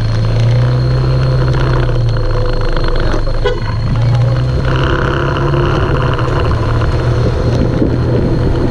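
Motorcycle engine running steadily with a low hum while riding, with road and wind rumble. A higher-pitched sound joins from about five seconds in for a couple of seconds.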